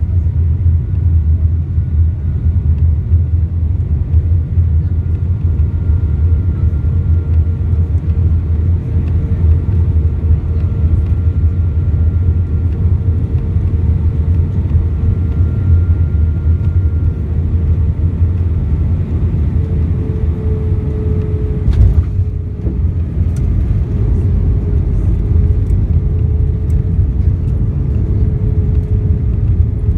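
Airbus A319-131 cabin noise: a steady low rumble of airflow and the IAE V2500 engines, with a faint steady engine whine. A single sharp knock comes about two-thirds of the way through.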